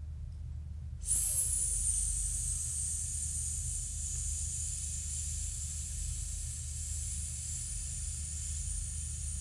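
A woman hissing a long, steady 'sss' on a controlled out-breath, starting suddenly about a second in after a held breath. This is a breath-management exercise: exhaling evenly for 16 counts on an S sound.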